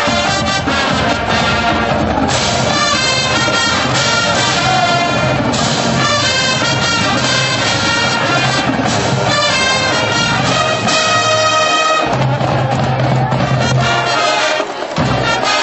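Marching band playing a brass tune, trumpets and saxophones together. A long low note is held about twelve seconds in, followed by a brief break near the end.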